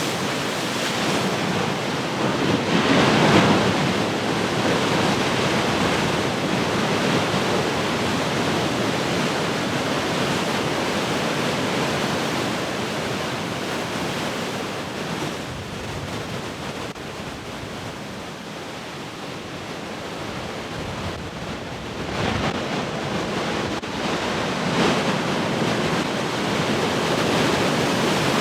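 Heavy ocean surf: large waves breaking and washing in a continuous rush. A wave breaks loudly about three seconds in, the surf eases in the middle, and it builds again with further breakers towards the end.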